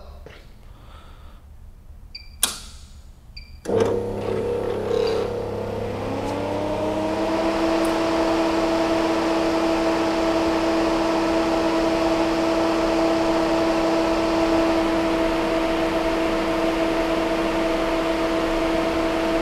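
Orbital TIG welding on stainless steel tube in a Magnatech QX800-series orbital weld head. A sharp click comes about two and a half seconds in. About a second later the arc strikes, bringing a sudden steady hiss and hum. Two steady tones rise and settle a few seconds later and hold through the weld, starting to fall away right at the end.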